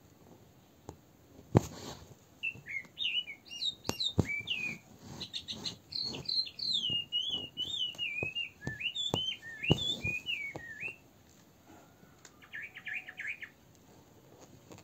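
A songbird singing: a run of quick, varied warbling chirps, then a short fast trill near the end. There are also a few sharp taps, the loudest about one and a half seconds in.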